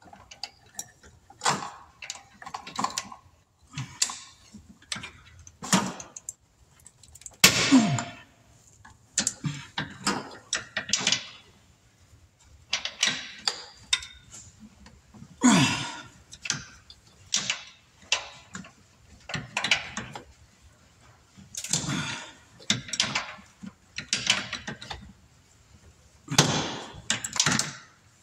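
A ratchet with an extension and other hand tools clicking and clinking against metal as engine parts are unbolted, in irregular short knocks and clatters every second or two.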